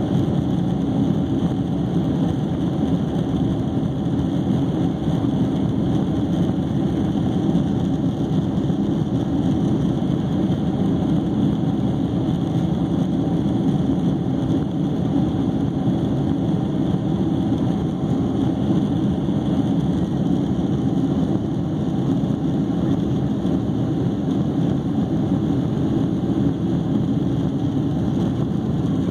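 Steady low hum inside a Boeing 767-300's cabin from its jet engines at low thrust while the airliner taxis, with no spooling up.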